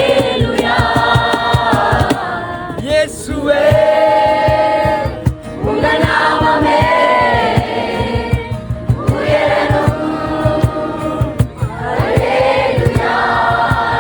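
A group of voices singing a Christian worship song together, in sung phrases with short breaks between them, over a fast, regular beat.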